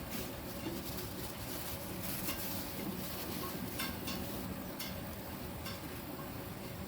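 Motor-driven liquid mixing machine running steadily, with a few light clicks or taps over it in the middle.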